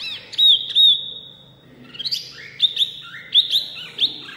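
Caged hwamei (the 'wambi mini' of Indonesian bird keepers) singing loudly: clear, ringing whistled notes that glide down in pitch, a few spaced notes in the first second, a short lull, then a quicker run of varied whistles from about halfway on.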